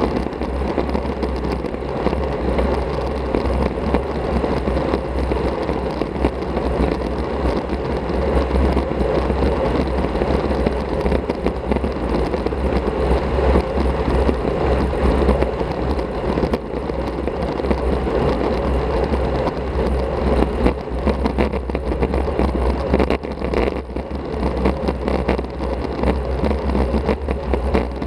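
Steady rush of wind buffeting the microphone of a bike-mounted Shimano CM-1100 action camera while cycling at speed, a deep rumble with road and tyre noise mixed in.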